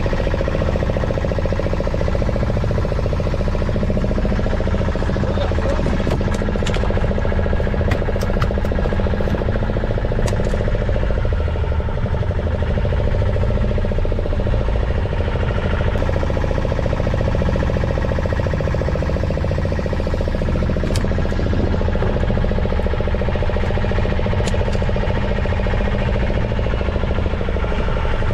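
A fishing boat's engine running steadily, with a constant low drone.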